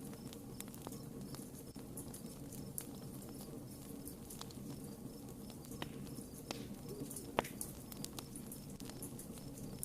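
Wood campfire crackling: irregular sharp pops and snaps of burning wood over a steady low rush of flame, with the loudest pop about seven seconds in. A faint high chirp repeats steadily in the background.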